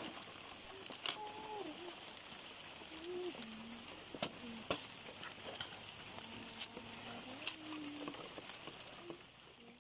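Banana stem being peeled apart by hand, with a few sharp cracks and snaps as the sheaths split, over a steady high hiss. Faint pitched sounds glide up and down in the background.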